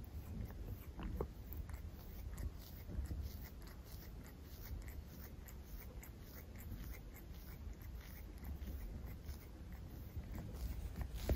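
A cat chewing and crunching food: faint, irregular small clicks over a low rumble.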